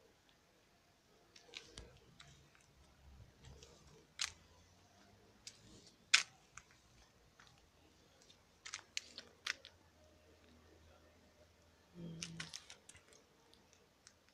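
Quiet background with scattered faint sharp clicks and taps, the loudest about four and six seconds in and a small cluster around nine seconds, and a brief low murmur about twelve seconds in.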